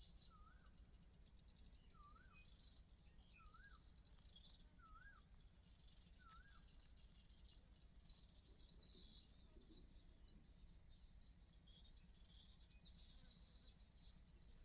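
Faint bird calls: a short up-and-down note repeated five times, about every second and a half, stopping about six seconds in. Under them runs a steady, high, faint chirring.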